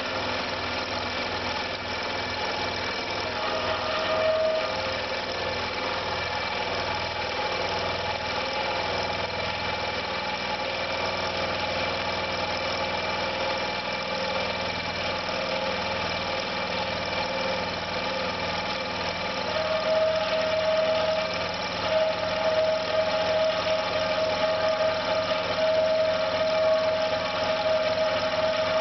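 Failing electric air compressor running under load with an uneven, vibrating motor sound that is not running round. A high squealing tone comes in briefly about four seconds in and again from about two-thirds through, holding to the end.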